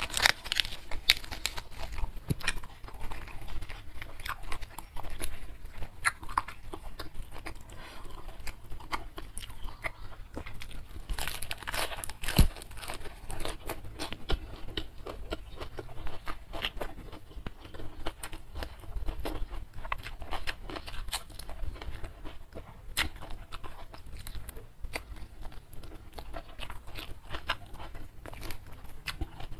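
Close-miked chewing and crunching of crispy fried catfish and raw lettuce, a dense run of crisp crackles and bites.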